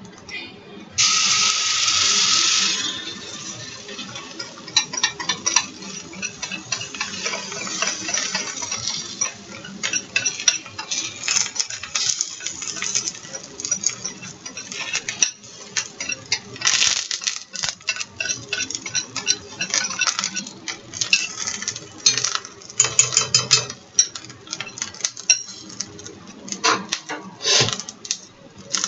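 Hot oil in a frying pan hissing loudly for about two seconds, starting about a second in, followed by repeated clinks and scrapes of a utensil against the pan as the flatbread cooks.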